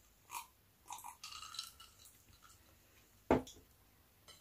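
Soft swallowing sounds from drinking orange juice, then a drinking glass set down on the table with one sharp knock about three seconds in.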